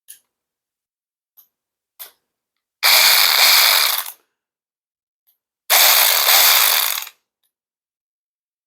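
VTEK V116-1 16.8 V cordless ratchet wrench: a few light clicks, then the motor and ratchet head whir unloaded in two bursts of about a second and a half each, each at one steady speed, since the trigger is simply on or off.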